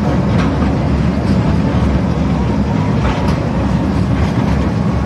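Mini amusement-park train running along its track, heard from on board: a loud, steady rumble with a few light clicks from the wheels.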